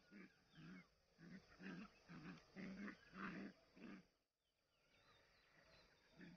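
Dogs play-fighting: a quick series of short growls and yips, about two a second, that stops about four seconds in.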